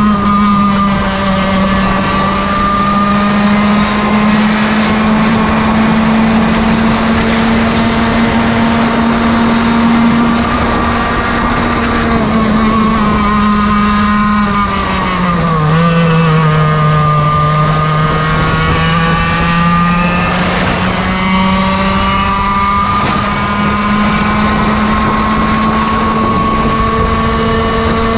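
Yamaha KT100 two-stroke kart engine running at high revs under race load, its note holding fairly steady. About halfway through the pitch sags for a few seconds as it comes off the throttle, then climbs back up.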